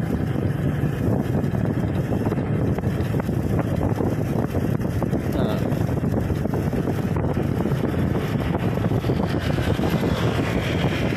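Motorcycle riding steadily along a road, its engine and tyre noise mixed with wind rushing over the microphone.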